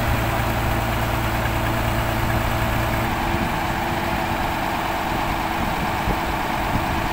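The heavy engine of a 175 HP tracked winch rig running steadily under load while it pulls on the cable. About three seconds in, the low engine note gives way to a different, higher-sounding engine mix.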